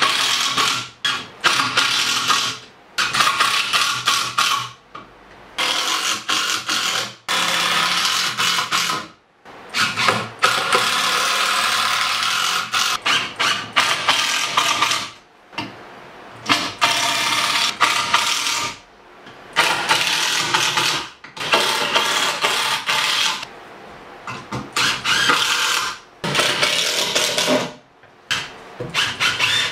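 Cordless impact driver driving wood screws into 2x4 framing lumber, in repeated runs of one to several seconds with short pauses between screws.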